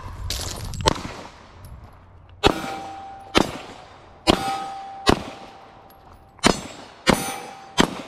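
A handgun is fired seven times at a steady pace, about a shot a second, after a single sharp knock about a second in. Several of the hits set a steel target ringing with a clear, lingering tone.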